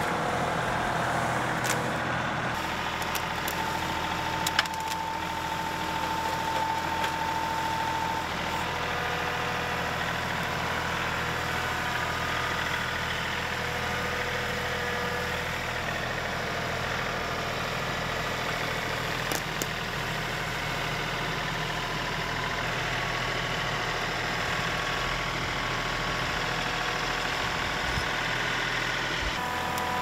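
A John Deere 2038R compact tractor's three-cylinder diesel engine runs steadily under working load while its grapple handles brush, with a few short clicks.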